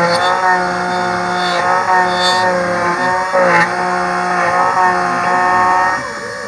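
Miracle A7 key machine's cutter spindle motor running at medium speed while cutting a Toyota TR47 key blank: a steady whine whose pitch dips briefly every second or two as the cutter works the blade. It winds down near the end as the cut finishes.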